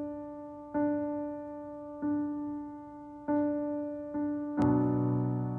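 Solo piano playing one note again and again at a slow, even pace, each strike fading away, then a fuller chord with low notes near the end.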